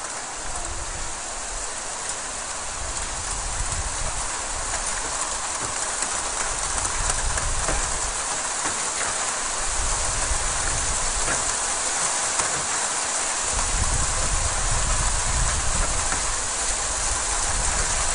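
Hail pelting the street and rooftops, a dense steady hiss of countless small ice pellets ticking on pavement and metal, growing louder. About three-quarters of the way through, the low rumble of a pickup truck driving up the street joins in.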